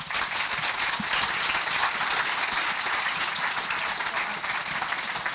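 Audience applauding: dense, steady clapping from many hands that thins out toward the end.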